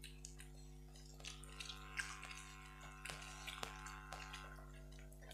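Faint wet squelching of rice being mixed with curry by hand on metal plates, with a few small clicks of fingers against the plates, over a steady low hum.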